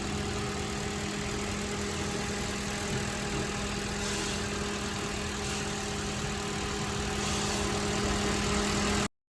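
Mitsubishi Colt's engine idling steadily, a constant hum that gets slightly louder about seven seconds in.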